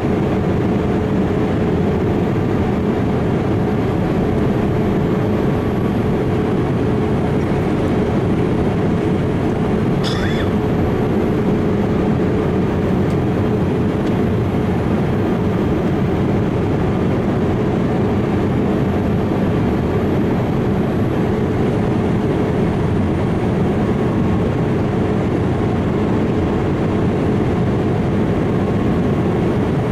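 Steady rumble of a Boeing 787-8 airliner's jet engines running, with a constant hum in it. A brief high-pitched chirp sounds once about ten seconds in.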